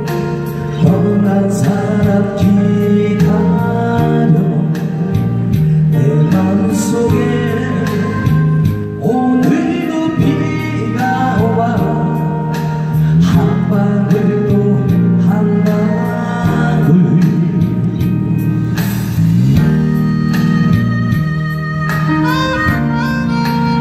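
A man singing a Korean ballad into a handheld microphone, with instrumental accompaniment and a steady beat.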